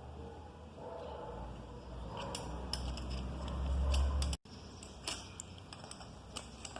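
Metal wrench clicking and clinking against the housing bolts of a Bosch starter motor as it is tightened during reassembly, with irregular sharp ticks over a low hum. The sound cuts out for an instant about two-thirds through.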